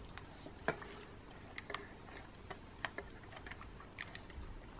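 Faint, scattered clicks and taps of a metal spoon against a plastic yogurt pot while it is being handled and spooned from.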